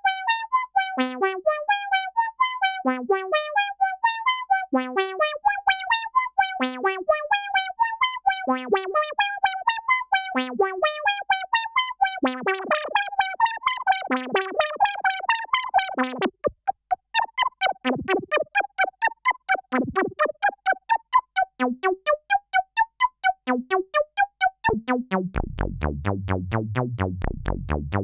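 Behringer System 100 analog synthesizer playing a rapid, brassy arpeggio of repeating notes, with a short falling blip about every two seconds. Near the end it changes to a low, resonant bass line.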